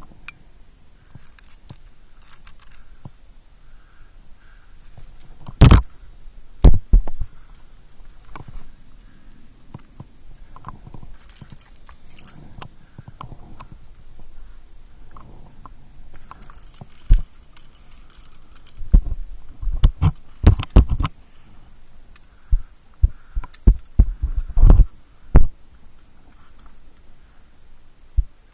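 Irregular knocks, thumps and scrapes of a climber moving up a sandstone face with the camera carried on them, hands, shoes and gear bumping the rock close to the microphone. The knocks come singly or in quick clusters, loudest about six seconds in and again through the second half.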